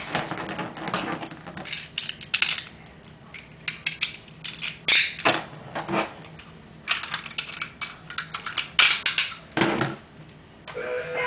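Irregular clicking and clattering of hard plastic being handled, in short bunches with pauses between, as the Beyblade tops and launchers are readied. Music comes in near the end.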